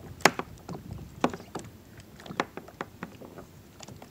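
Irregular sharp clicks and knocks of fishing gear being handled aboard a plastic kayak, the loudest about a quarter second in and another about a second later.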